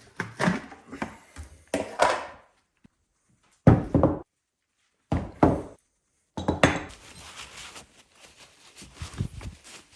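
Metal vise parts and the container they soaked in being handled: a series of separate thunks and clinks, the loudest about four seconds in, then a quieter stretch of scraping and rustling.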